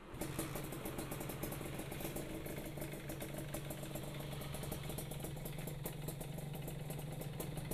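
Suzuki Satria two-stroke single-cylinder engine idling steadily through a CMS ABRT20 underbelly exhaust, with a fast, even pulse.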